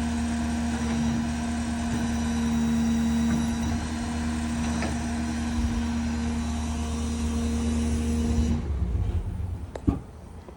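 Ford 6.7 Power Stroke diesel running while it drives the hydraulic crane, with a steady whine over the engine. The whine and much of the engine sound cut off suddenly near the end as the crane function stops, leaving the engine running quieter. A single sharp click follows.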